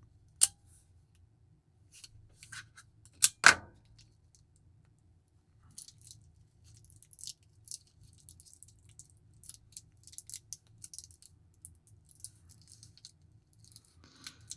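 Clear plastic shrink wrap and a small bag being picked at and peeled off metal watch end links. A sharp click just after the start, a louder pair of clicks about three and a half seconds in, then faint crinkling.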